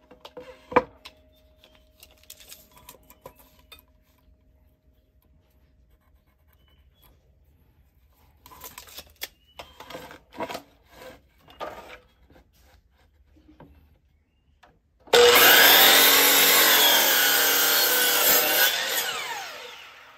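DeWalt miter saw starting abruptly about three-quarters of the way through, running loud for about four seconds as it cuts a pallet board, then winding down with a falling pitch. Before it, scattered light knocks and taps as the board is handled and set against the fence.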